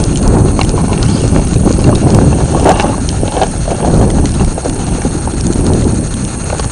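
Wind buffeting the microphone: a loud, uneven low rumble that swells and fades in gusts.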